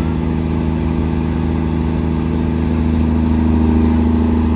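Semi truck's diesel engine running steadily at a held speed, growing a little louder about three seconds in.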